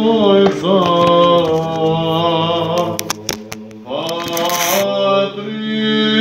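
Male monastic voices chanting a Byzantine hymn in Arabic in the plagal first (fifth) mode: a melody line moving over a low held drone note. About three seconds in the chant briefly drops away, then resumes.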